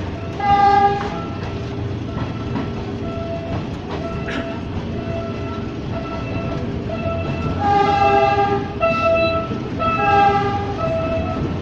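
Ex-JR 203 series electric multiple unit running on the line, with a steady rumble. Its horn sounds in short blasts: once about half a second in, then three more in quick succession near the end.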